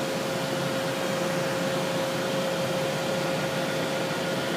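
Steady whirring hum of running machine-shop equipment, with one constant whine over it.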